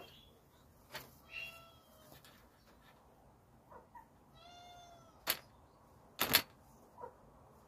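Domestic hen making a few short, soft pitched calls, one drawn out for about half a second midway, with several sharp knocks close to the microphone, the loudest a double knock near the end.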